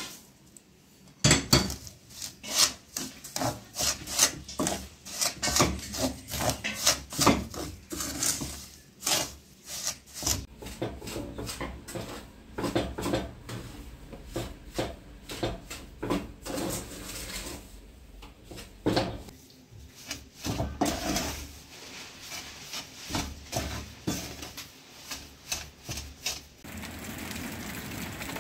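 Wood rubbing and scraping in a long irregular series of strokes, about one or two a second, that stops near the end, leaving a steady hiss.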